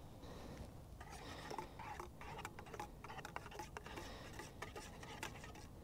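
Folding titanium spoon stirring instant coffee, scraping and clinking against a metal pot: a quick, irregular run of light scrapes and ticks starting about a second in.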